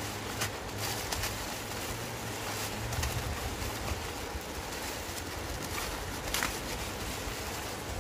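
Steady rushing noise of running stream water, with a few brief clicks.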